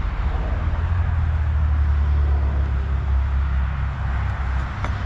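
Low, steady outdoor rumble that swells a little in the middle and eases off, with one faint click near the end.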